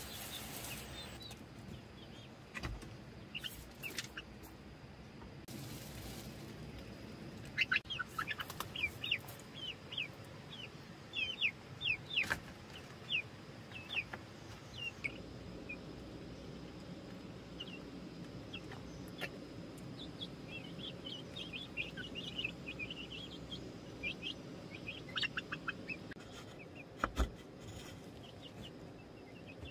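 Birds chirping in clusters of short, high, downward-sliding notes, with a few scattered knocks.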